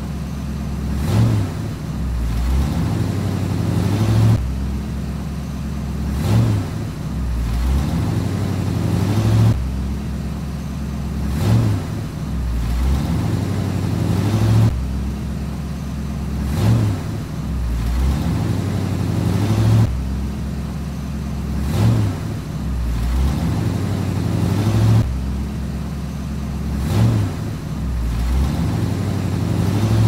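Engine sound of a truck running steadily, with a short rev that comes back every few seconds in an exactly repeating pattern, like a looped engine sound effect.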